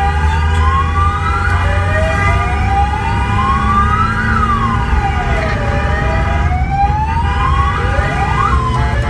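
Fire-response vehicle siren wailing: a slow glide rising to a peak about four seconds in, falling away, then rising again, over a steady multi-note tone and a low engine rumble, heard from inside the cab.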